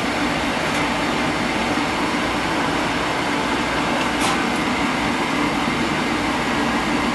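Residential oil boiler's burner firing, with a steady, even rumble from the burner fan and flame; the burner is burning clean, with zero smoke on the smoke test.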